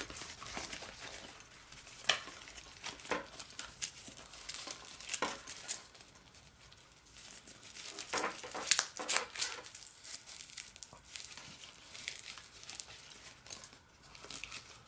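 Nylon mesh travel pouch rustling and scratching as fingers scrunch and handle it close by, in irregular bursts with a few louder scrapes.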